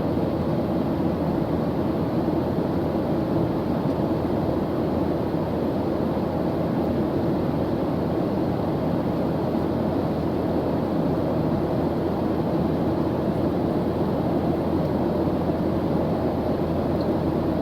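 Airplane engine noise: a steady, even rushing drone that does not change.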